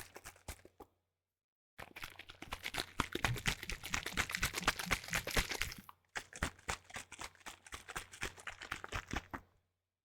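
A plastic bottle of liquid being shaken hard, with rapid sloshing strokes. There is a short stretch, a pause of about a second, a long stretch, then a second longer stretch that ends near the end.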